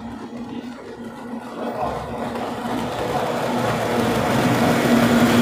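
Pack of kyotei racing boats' two-stroke outboard motors buzzing together, growing steadily louder as the boats approach.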